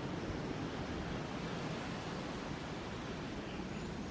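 Steady rushing noise with no distinct sounds standing out from it.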